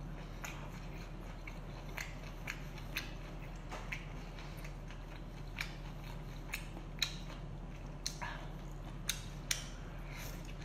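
Mouth sounds of someone eating sauced seafood held in the hands: chewing, with about a dozen short, sharp wet smacks and clicks at irregular intervals. A steady low electrical hum runs underneath.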